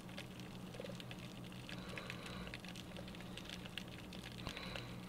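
Faint underwater ambience picked up by a GoPro in its waterproof housing under a pier: many irregular small clicks and crackles over a steady low hum.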